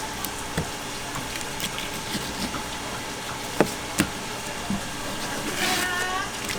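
Sharp knocks of a knife striking a wooden cutting board while fish is filleted, two of them louder about three and a half and four seconds in, over a steady wash of running water. A brief voice sounds near the end.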